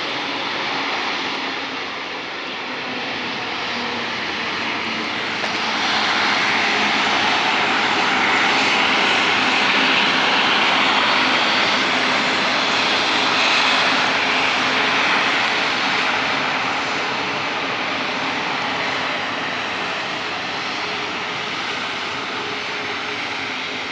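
Embraer E190-E2's twin Pratt & Whitney PW1900G geared turbofans running at taxi power, a steady whine and rush that grows louder about six seconds in and eases off over the last several seconds.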